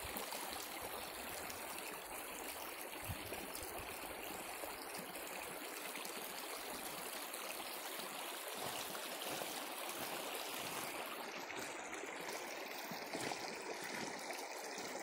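Shallow stream trickling steadily over gravel and stones. Near the end come a few soft steps through the water.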